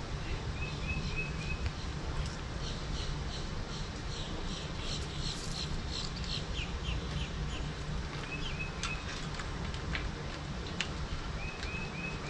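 Birds calling: short chirps repeated in groups of three or four, and in the middle a fast run of higher notes that speeds up. A few light clicks sound near the end, over a steady low background noise.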